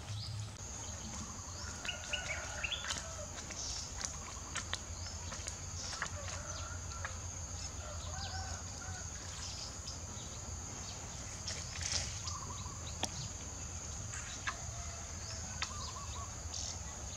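Outdoor ambience: a steady high-pitched insect drone, with scattered bird chirps and a few sharp clicks.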